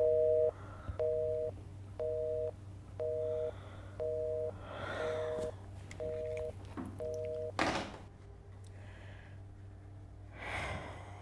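Telephone busy tone beeping from a corded landline handset after the other party has hung up: a two-tone beep about once a second, eight times. It stops, followed by a single sharp clunk.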